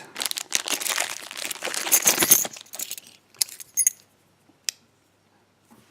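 Packaging crinkling as a lock is unwrapped, then keys and metal lock parts clinking a few times, and one sharp click about two thirds of the way in.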